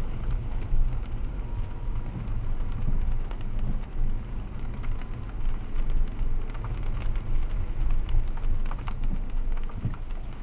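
Rain falling, with scattered tapping drops, more of them in the second half, over a steady low rumble.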